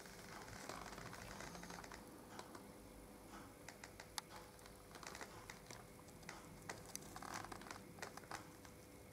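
Faint, irregular small clicks and taps over quiet room tone with a steady low hum.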